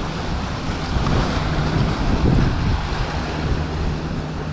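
Motorboat engine running steadily as the boat moves away, with a low steady hum, over wind noise on the microphone.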